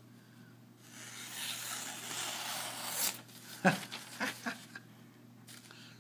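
Ontario SP5 Bowie knife's freshly polished carbon-steel edge slicing through a sheet of thin phone-book paper: a soft papery hiss lasting about two seconds. It is followed by a few sharp clicks and one louder knock as the paper and knife are handled.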